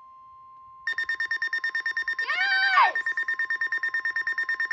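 A faint, steady NOAA Weather Radio warning alarm tone, joined about a second in by a weather alert radio's loud, rapid beeping alarm that keeps pulsing. A short rising-and-falling cry cuts through the beeping about two seconds in.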